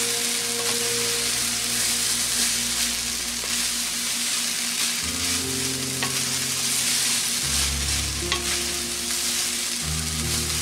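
Fried rice sizzling steadily in a hot wok while a wooden spatula stirs and turns it over, with a few light taps of the spatula against the pan.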